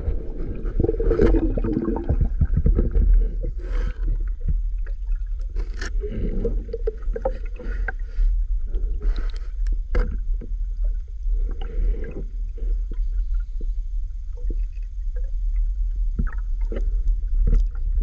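Muffled underwater sound picked up by a submerged camera: a steady low rumble, with scattered clicks and knocks and irregular gurgling swells of water movement.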